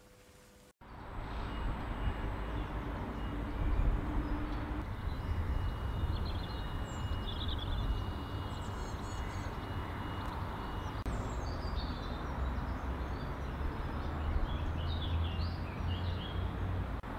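Outdoor ambience that cuts in suddenly about a second in after near silence: a steady low rumble with small birds chirping now and then, and a faint steady high whine for several seconds midway.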